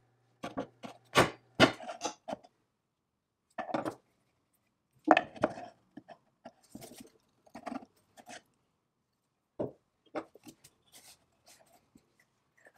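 Metal parts of a Foley automatic saw filer being handled: a cam lever is worked loose and lifted out of its brass bushing in the cast-iron body. It makes a series of sharp metal clicks, knocks and short scrapes, loudest in the first two seconds and again about five seconds in.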